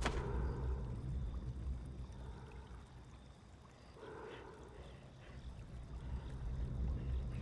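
Low, steady rumbling drone of a horror-film soundtrack, with a sharp click right at the start and a breathy swell about every four seconds.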